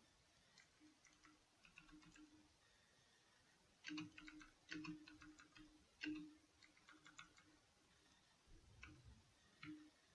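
Computer keyboard typing: faint key clicks in several short bursts with pauses between them.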